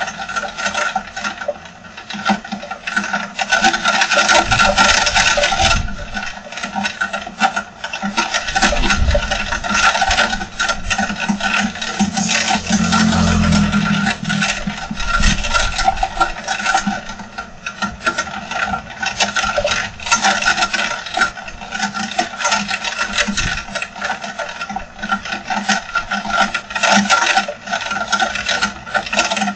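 Heavy downpour with wind: a dense, rapid patter of rain that swells and eases every few seconds.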